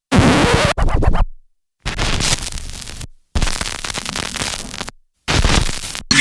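Four short cinematic sound-effect samples played one after another, each starting abruptly, mostly noisy, and fading or cutting off into a brief gap of silence.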